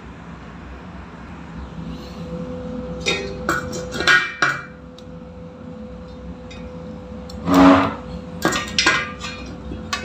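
Metal clinks and knocks from a brass gas regulator being handled on top of a steel LPG cylinder. A few sharp clicks come about three to four and a half seconds in, a louder clatter at about seven and a half seconds, and more clicks just before the end.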